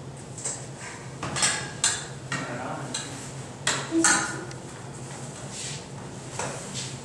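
Stainless-steel pans, lids and serving spoons clinking and clattering as they are handled, with a string of short knocks. The loudest are about a second and a half in and about four seconds in.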